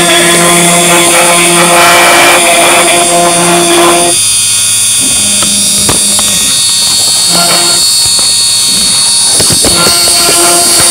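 DIY CNC router milling a wooden board: the spindle runs with a steady high whine while the stepper motors hum in low tones that start, stop and change pitch as the gantry moves. About four seconds in, the rough cutting noise drops away for several seconds, then returns near the end.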